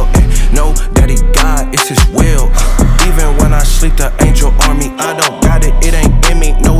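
Background hip hop music with a heavy bass and a steady beat, with a rapped or sung vocal line.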